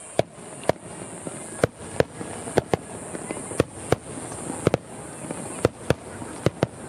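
Fireworks display: aerial shells bursting overhead in a rapid, irregular string of sharp bangs, about two a second, with a continuous noisy rumble between them.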